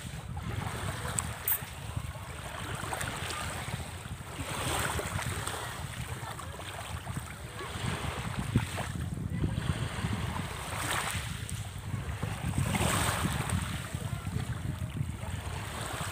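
Sea waves washing in, swelling every couple of seconds, with wind rumbling on the microphone.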